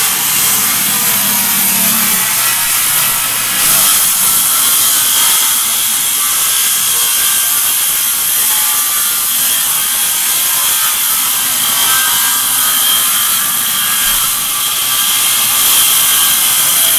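Circular saw cutting through a vinyl-tiled wooden floor, with a Ridgid shop vacuum running on a hose hooked to the saw's dust port. The noise is loud and steady.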